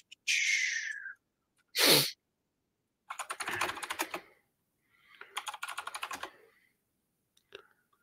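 Typing on a computer keyboard in two quick runs of key clicks, about three seconds in and again about five seconds in. Before them come a brief hiss and a short loud burst of noise close to the microphone.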